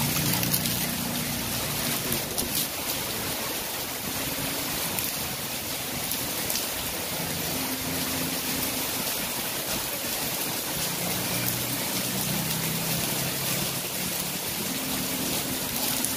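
Heavy rain falling steadily on concrete and splashing into a plastic bucket brimming with water, an even hiss with no breaks.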